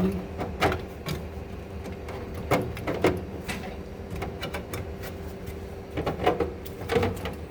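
Scattered clicks and knocks as the shield panel of a coffee machine is fitted back into place, a few sharp ones about a second in, around three seconds in, and near the end, over a steady faint hum.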